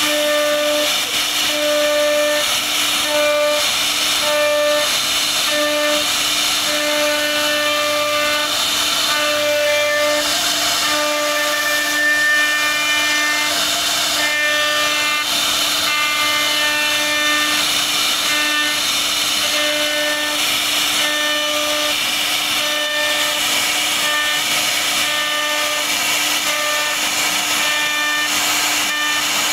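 CNC router spindle running with a steady whine while its carving bit cuts a relief pattern into a wooden board. The cutting noise comes and goes in strength as the bit moves through the wood.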